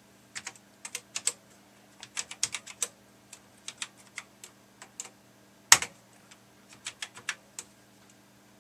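Typing on an Amstrad CPC 464's keyboard: irregular keystroke clicks, some in quick runs, with one much louder key clack about five and a half seconds in. A faint steady hum runs underneath.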